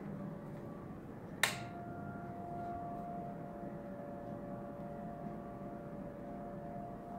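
A light switch clicks once, sharply, about a second and a half in, over a steady low hum. A faint steady whine sets in with the click and carries on.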